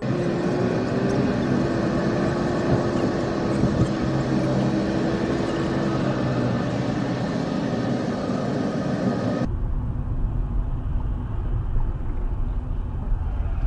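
Car driving on a highway, heard from inside the cabin: steady engine and road noise with a held mid-pitched whine that fades out about six seconds in. About nine and a half seconds in, the hiss drops away abruptly, leaving a deeper rumble.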